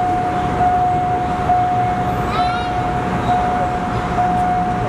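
Level-crossing warning signal sounding a steady high tone that breaks briefly about once a second, over the low running of a standing diesel railcar; a short squeal about two seconds in.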